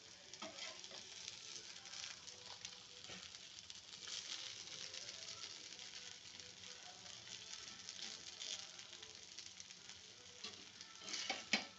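Dosa frying in oil on a hot griddle: a faint, steady sizzle with fine crackling. A few sharp knocks come about a second before the end.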